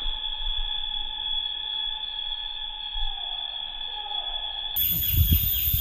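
A steady high-pitched whine held on one pitch, with overtones. Near the end it gives way abruptly to low thumps.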